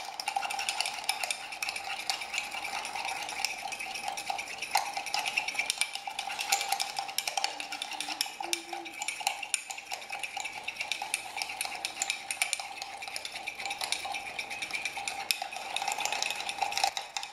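Teaspoon beating instant coffee, sugar and a little hot water in a mug, a rapid, steady clinking and scraping against the mug's sides. The mixture is being whipped into a thick, light-brown paste as the first step of a cappuccino.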